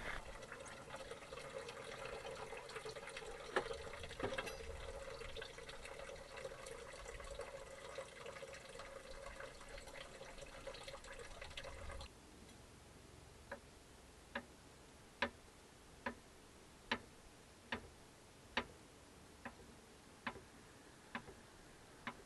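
Steady outdoor background hiss with a faint hum for about twelve seconds, which then drops away suddenly. A kitchen knife then cuts on a cutting board, about eleven short sharp strokes roughly once a second.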